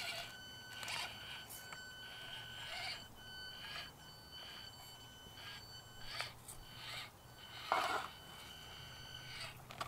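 Axial SCX24 micro RC crawler's small electric motor and gears giving a thin, high whine that starts and stops in short spurts, with faint clicks of the tyres and chassis on rock and one louder scrape about eight seconds in.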